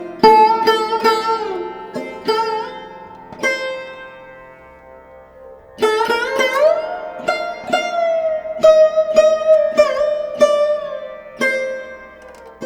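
Live Pakistani classical music: a plucked string instrument playing a melody of separate notes that slide and bend in pitch as they ring. The playing thins to a fading ring from about three and a half seconds in, then picks up again at about six seconds.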